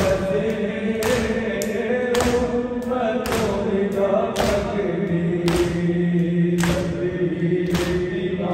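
A crowd of men chanting a noha lament together in long, held notes, with their palms striking their chests in unison (matam), a sharp slap at a slow, even beat of about one a second.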